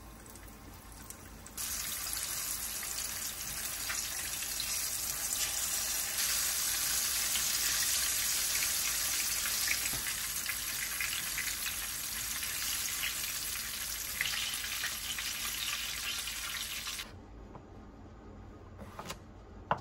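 Kitchen tap running in a steady stream into the sink, turned on about a second and a half in and shut off sharply near the end, followed by a few light clicks.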